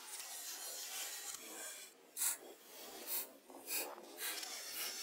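A knife making short scraping cuts: a soft rustle, then about five quick, sharp strokes from about two seconds in, the first the loudest.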